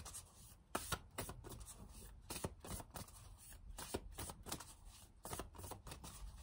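A deck of tarot cards being shuffled by hand, cards passed from one hand to the other. It makes an irregular run of soft flicks and slaps, several a second.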